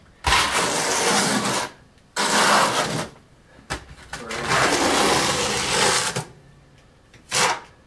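Notched trowel scraping through wet thinset mortar on a wooden subfloor, combing it into uniform ridges. There are three long strokes, then a short one near the end.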